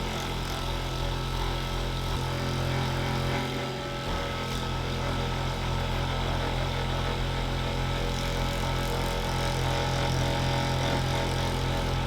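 Ekrin B37 percussion massager running steadily, its motor humming as it works deep into the shoulder and back muscles, with a brief dip about four seconds in.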